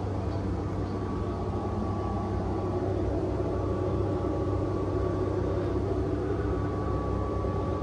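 Steady low drone of the yacht's triple Mercury Verado V12 outboard engines running at low speed, heard from inside the helm cabin.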